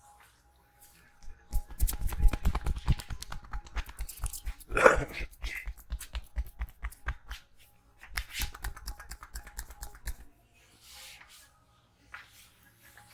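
Rapid percussive hand strokes of a barber's head massage: quick tapping and slapping on the head and shoulders, in dense runs, with one louder hit about five seconds in. The strokes stop for a couple of seconds near the end, with a few more at the close.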